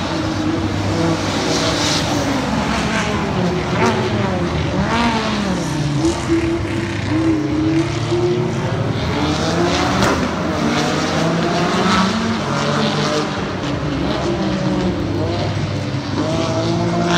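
Race car engines, a Porsche 911 ST and an all-wheel-drive Audi, revving hard on a wet circuit, their pitch rising and falling again and again with throttle and gear changes.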